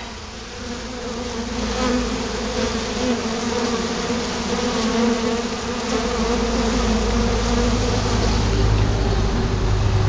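A dense crowd of honey bees buzzing in a steady hum as they mob a jar feeder of sugar syrup, growing louder over the first two seconds. A low rumble joins about six seconds in.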